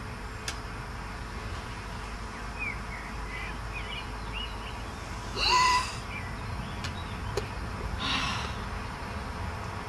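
Outdoor ambience: a low steady rumble with small bird chirps, then one short, louder pitched call about halfway through and a brief breathy rush near the end.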